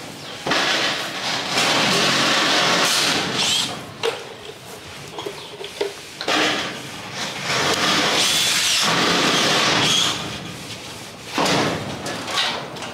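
A handheld power tool running in three bursts of a few seconds each, with short stops between.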